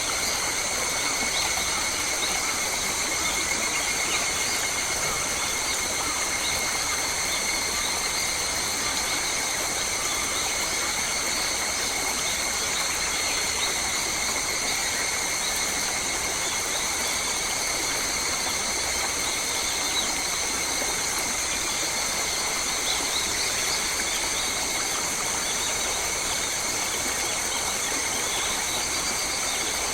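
Steady insect chorus in bushland: several shrill high tones held unbroken together over a soft hiss.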